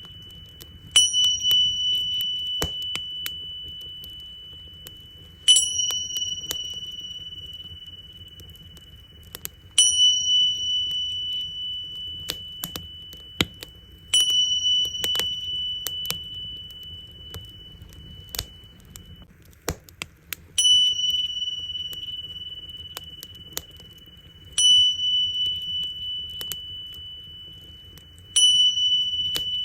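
Tingsha (Tibetan hand cymbals) struck together about every four seconds, seven times, each strike a bright high ring that fades slowly. Scattered crackles and pops from a wood fire burning, with a low steady rumble underneath.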